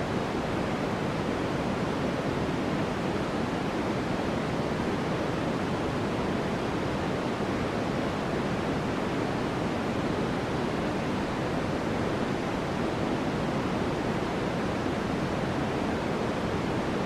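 Steady, even rushing noise of a white-noise relaxation track, deeper than a plain hiss.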